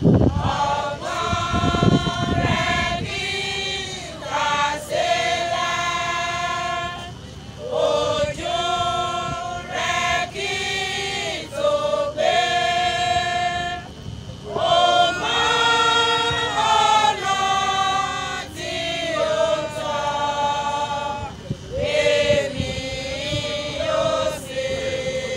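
A women's choir singing a hymn in unison without instruments: long, held notes in phrases, with short breaths between them.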